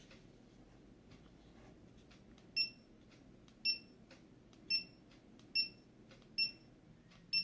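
GoPro Hero camera beeping as its buttons are pressed to step through the settings menu: six short high beeps about a second apart, starting a few seconds in, with faint button clicks between them.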